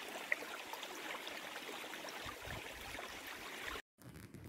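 Water of a small rocky stream running, a steady rush that cuts off suddenly near the end.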